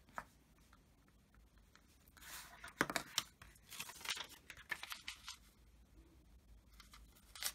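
Paper handling: a Post-it note strip peeled up from cardstock and pressed back down, with soft rustles and a few sharp ticks as a plastic ruler is moved aside.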